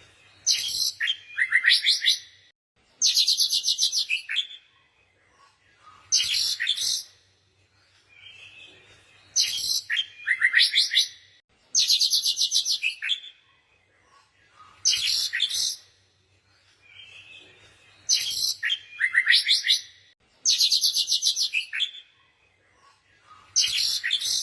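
Songbird chirping: rapid trilled phrases of a second or two, high-pitched, repeating every two to three seconds with short pauses between.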